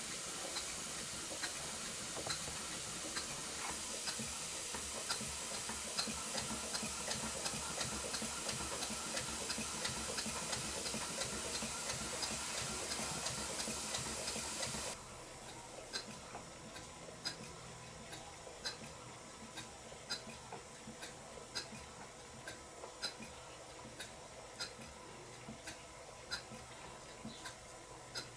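Stuart Twin Victoria model steam engine running on compressed air: a steady hiss with regular ticking from the engine. About halfway through, the hiss drops sharply and the ticking carries on more quietly. By the builder's account, the engine's timing is not yet quite right at this stage of the rebuild.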